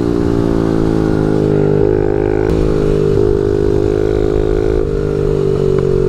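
Small 50cc pit bike engine running hard close to the microphone, its pitch stepping up and down several times with the throttle as the rider tries to make it backfire, without getting a pop.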